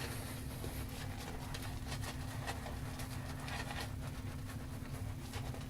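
Shaving brush working lather on the face: soft, irregular wet swishing strokes over a steady low hum.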